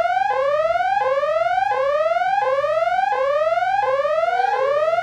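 An electronic alarm-like whoop, a tone that sweeps upward in pitch and repeats about once every 0.7 seconds, loud and steady.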